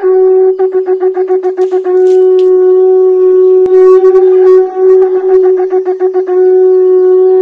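A wind instrument holding one steady high note. Twice it breaks into runs of rapid fluttering repeats, about eight a second, then settles back onto the held note.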